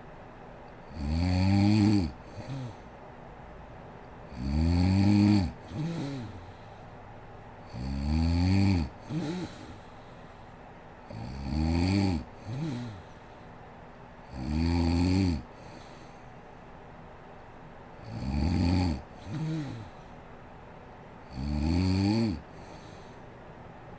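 A woman snoring in her sleep: a loud, pitched snore about every three and a half seconds, seven in all, each followed closely by a shorter, quieter snort.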